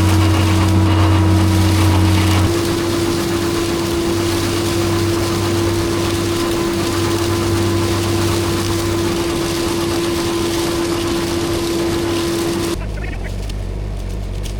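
Tractor engine running at a steady speed, its sound shifting abruptly a couple of seconds in and again near the end, when it turns to a duller low rumble.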